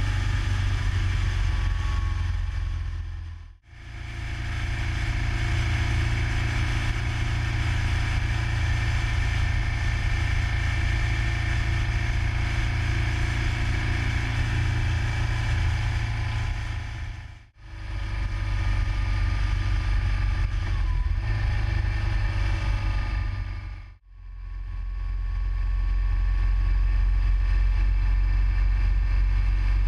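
Motorcycle at road speed heard from a bike-mounted camera: engine running steadily under a heavy rumble of wind on the microphone. The sound fades out and straight back in three times, about 4, 18 and 24 seconds in, where the footage cuts.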